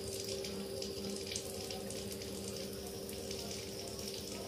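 Steady rushing noise like running water, over a low steady hum.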